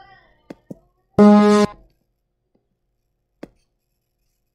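A single short musical note, steady in pitch and about half a second long, from an animated bumper's soundtrack. It comes just after two quick clicks, and one more click follows about three and a half seconds in.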